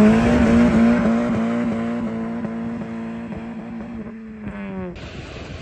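A 9th-generation Honda Civic Si's 2.4-litre four-cylinder engine, fitted with an aftermarket downpipe and exhaust, revving at high rpm. The note climbs briefly at the start, then holds steady while growing quieter, and cuts off suddenly about five seconds in, leaving faint wind noise.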